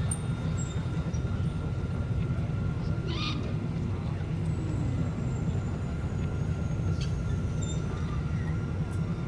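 Layered sci-fi desert-town ambience: a steady low rumble with a faint steady high whine, a short chirp about three seconds in and a click about seven seconds in.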